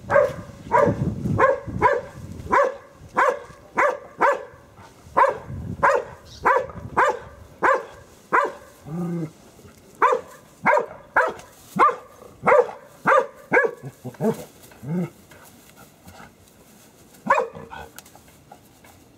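Dog barking in short, sharp barks, about two a second, at an iguana it has cornered. The barking thins out after about fifteen seconds, with one last bark near the end.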